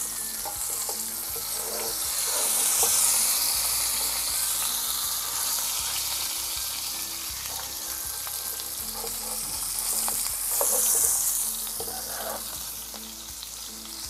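Coated stuffed mackerel shallow-frying in hot oil in a frying pan: a steady sizzle that swells twice, around three seconds in and again near eleven seconds.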